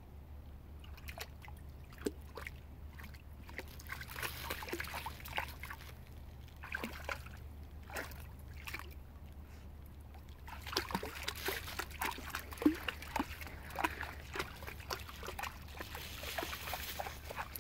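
Dog splashing and wading in shallow creek water: many small splashes and sloshes, coming thickest from about ten seconds in.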